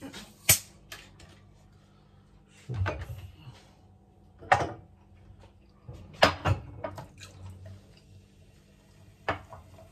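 Scattered kitchen clatter: a handful of sharp knocks and clinks of dishes and utensils, the sharpest about half a second in and again around six seconds in, with quieter handling noises between.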